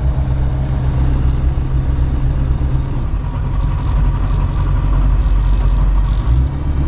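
Light aircraft piston engine and propeller running steadily on the ground at about 2000 rpm, heard from inside the cockpit as a steady low drone.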